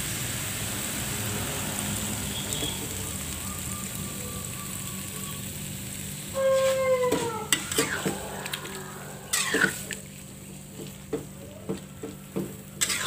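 Banana heart sizzling in a pan with thick coconut milk just poured in; from about six seconds in, a metal spatula stirs it, knocking and scraping against the pan with sharp clicks and short squeaks.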